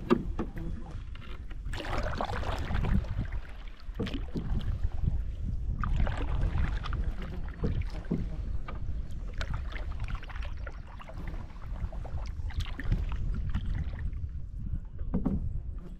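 Canoe paddling: a paddle stroke swishes through the water roughly every two seconds, over a low rumble of wind on the microphone.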